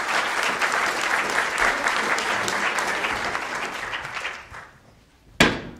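Audience applauding, dying away after about four and a half seconds. Near the end comes a single sharp thump.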